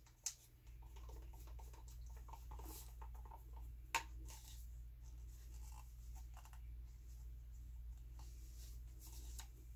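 Faint taps and clicks of small plastic paint cups being handled, with one sharper click about four seconds in, over a steady low hum that starts just after the beginning.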